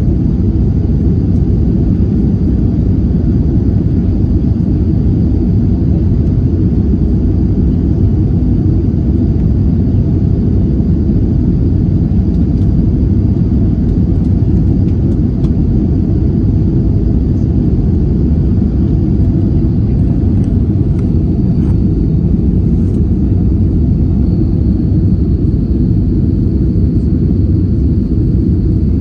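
Passenger airliner on its approach for landing: a steady, loud, low rumble with a faint high whine above it.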